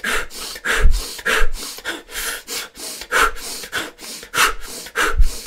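A man doing forceful rapid breathing, in through the nose and out through the mouth, about three sharp breath sounds a second, with his nose a little stuffed up. A couple of the breaths land with a low thump.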